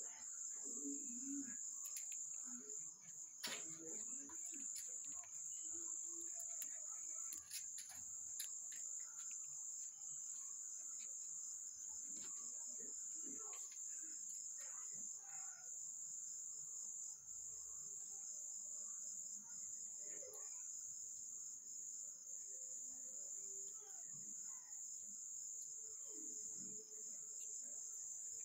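Steady high-pitched chirring of crickets, with scattered faint clicks and shuffling sounds under it.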